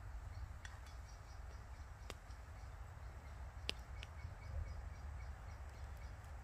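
Quiet woodland ambience: a steady low rumble, faint high bird chirps in short repeated runs, and a few sharp single clicks, the clearest about two seconds in and again just before four seconds.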